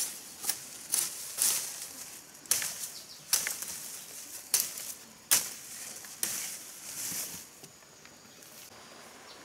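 A leafy cut branch swishing and rustling as it is pulled and dragged through undergrowth, in a string of about nine quick, sharp swishes and crackles over the first seven seconds, then quieter.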